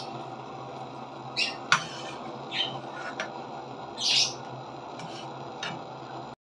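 A spatula scraping against a wok in short strokes, with one sharp knock about two seconds in, over a steady background hum.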